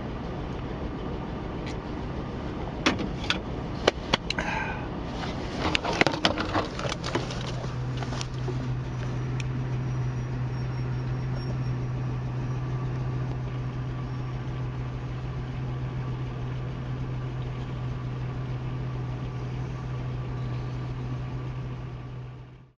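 Truck engine running at idle, heard from inside the cab. A few clicks and knocks of handling come about three to seven seconds in, and after that a steady low hum grows stronger.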